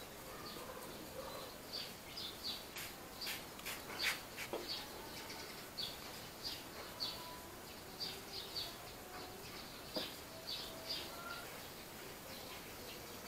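A small brush scrubbing the metal mechanism inside an old Philips record player's turntable deck: a faint, irregular run of short, scratchy strokes, two or three a second.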